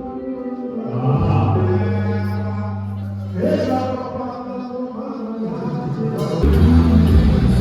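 Background music with a choir singing sustained notes.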